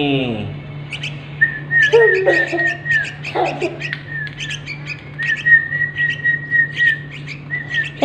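Yellow-vented bulbul nestlings begging with rapid, sharp chirps while being fed from a stick. Over them, a man whistles a string of short notes on one high pitch to call them.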